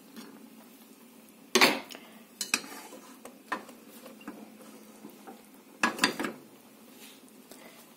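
Stainless steel saucepans clinking and knocking on a gas stove's grate: a handful of separate metallic knocks, the loudest about one and a half seconds in and another pair about six seconds in.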